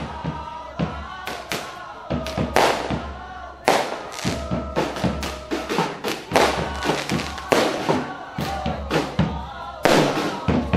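Procession music with singing voices, broken by many sharp, irregular bangs that come thickest from about four seconds in.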